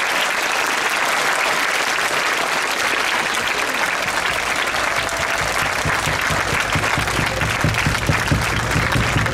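Crowd applauding, a dense even patter of many hands clapping, with a low beat joining in past the middle.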